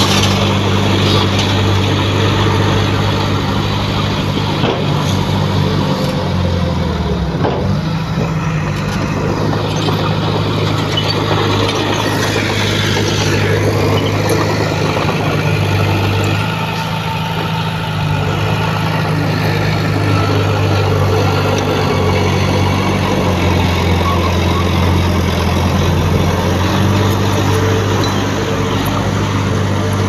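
Heavy construction machine's engine running steadily under load, its note dipping and recovering about seven seconds in and again near the end.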